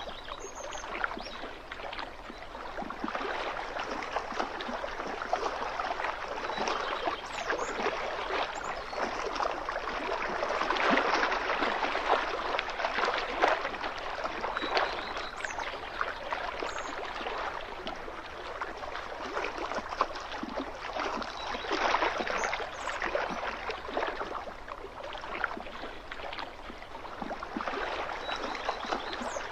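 Small lake waves lapping and splashing against the shoreline: a continuous wash of water with many little irregular splashes that swells and eases.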